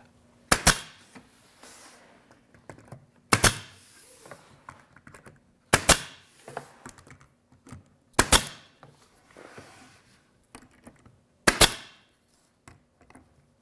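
Pneumatic 23-gauge pin nailer firing five times, a sharp pop every two to three seconds, driving short pins through lightweight crown molding into a wooden cap.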